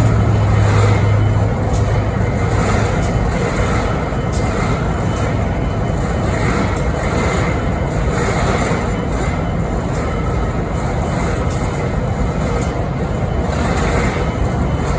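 BNSF diesel-electric locomotive idling with a steady, loud rumble and a faint, regular tick about every two-thirds of a second. A low hum fades out in the first couple of seconds.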